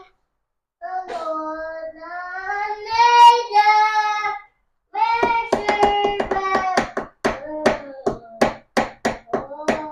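A child singing a tune. About halfway through, a steady rhythm of sharp clicks or taps joins in, about three a second.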